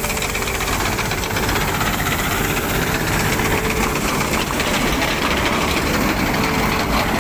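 Swaraj combine harvester running at close range while it harvests wheat: a steady, dense din of engine and machinery with no let-up.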